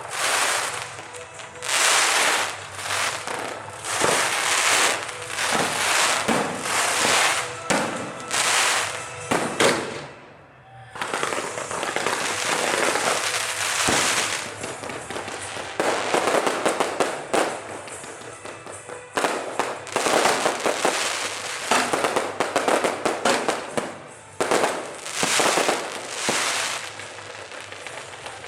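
Fireworks show going off in dense, crackling volleys of pops, one cluster after another, with a short lull about ten seconds in.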